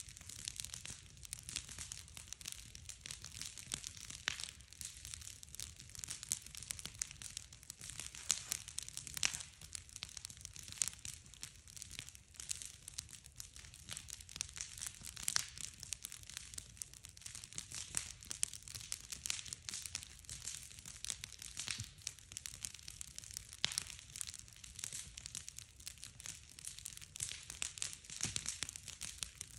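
Wood bonfire burning, crackling with frequent irregular sharp pops and snaps over a steady hiss.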